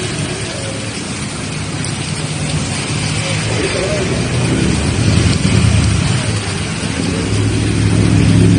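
Cars driving through deep floodwater: a low engine hum over a steady wash of water. It grows louder about five seconds in and again near the end as cars push past close by.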